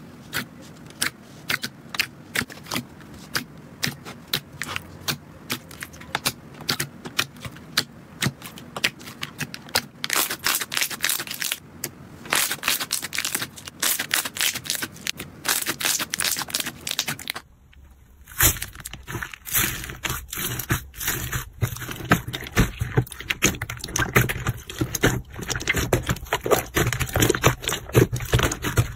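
Slime being pressed and kneaded by hand, giving runs of crackling, popping clicks as trapped air pockets burst. The clicks come a few at a time at first, then thicker. They break off briefly a little over halfway through, then start again in a dense crackle.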